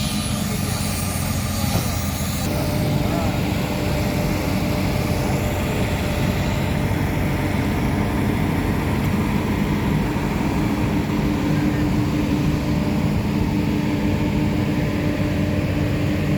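Steady motor-vehicle engine and road noise with a constant low hum, changing character about two and a half seconds in.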